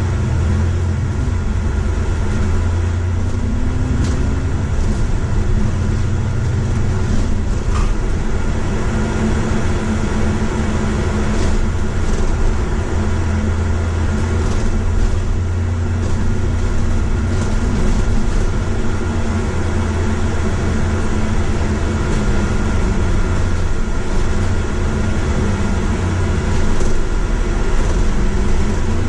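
Bus engine and road noise heard inside the cabin of a moving double-decker: a steady low drone, with the engine note rising and dropping a few times as it pulls away and changes gear.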